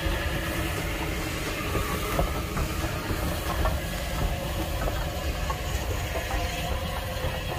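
Bulleid West Country class steam locomotive 34092 'City of Wells' hissing steam, over a steady low rumble, with a few faint clicks.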